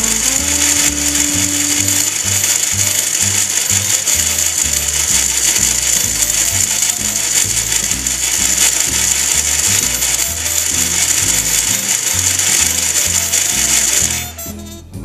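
Small electric motor driving a worm-gear and gear reduction, whirring and rattling steadily as it lowers a model drawbridge deck; it stops about fourteen seconds in as the deck comes level. Background music with a steady beat plays underneath.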